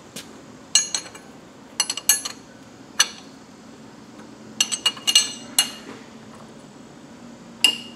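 Steel wrench clinking on the lathe's change-gear banjo nut as it is fitted and worked loose: sharp metallic clinks at irregular moments, several close together around five seconds in.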